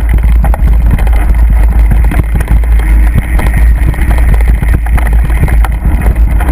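Mountain bike riding fast over a rough dirt forest trail: a loud, continuous low rumble with many quick knocks and rattles as the bike jolts over the ground.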